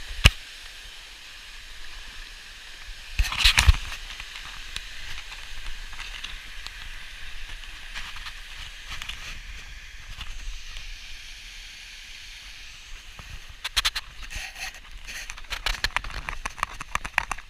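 Steady rush of water at a waterfall, with scattered knocks and scrapes over it: a loud cluster about three seconds in and a quick run of clicks in the last few seconds.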